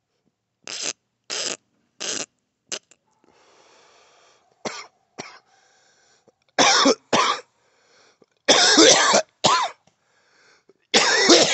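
Harsh, rasping cough-like bursts: three short ones, then longer and louder hacking bursts in the second half.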